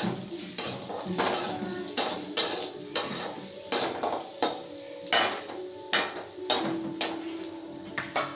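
Metal spoon scraping and knocking against a metal kadai while stir-frying onions, about two strokes a second, with a light sizzle underneath.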